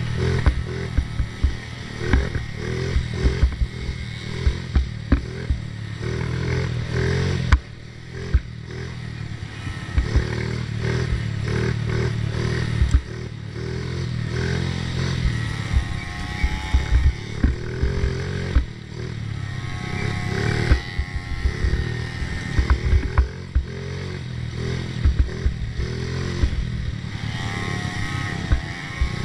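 A 50cc youth ATV engine running hard on a rough trail, its pitch rising and falling as the throttle opens and closes, with frequent knocks and clatter as the quad bounces over the ground.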